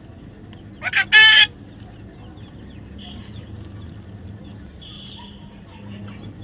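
A parrot gives one loud, harsh call about a second in, with a couple of short notes leading into it, followed by faint scattered chirps and soft squawks.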